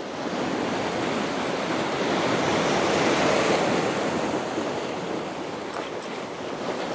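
Surf breaking and washing over a rocky shore: the rush of water swells to a peak about halfway through, then ebbs away.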